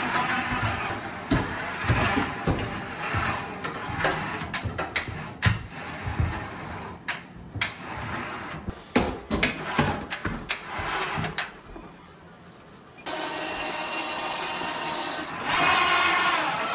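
Zonzini Domino battery-powered tracked stair-climbing trolley carrying a cast-iron radiator down a staircase: a run of knocks and clunks, then a short lull, then its drive running steadily for the last few seconds.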